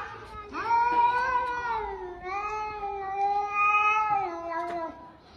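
Domestic cat yowling in two long, drawn-out calls, the second longer than the first.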